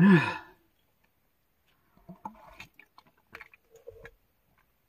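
A woman's short, loud vocal sigh falling in pitch, then faint scattered mouth clicks and smacks of lips and tongue.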